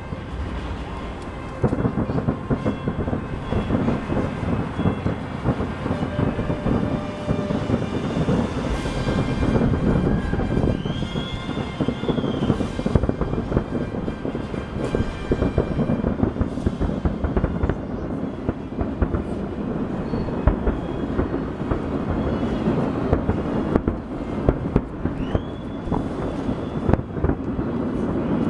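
Fireworks about a mile away, bursting in a dense, continuous barrage: rapid overlapping booms that merge into one unbroken low rumble, with a few brief whistles.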